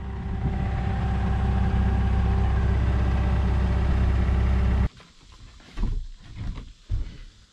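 Engine of the lifting machine running steadily, then cutting out abruptly about five seconds in, followed by a few faint knocks.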